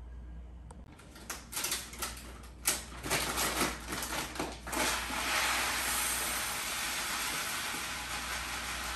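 Light clicks and knocks of a utensil against a frying pan, then a steady sizzle of food frying from about five seconds in.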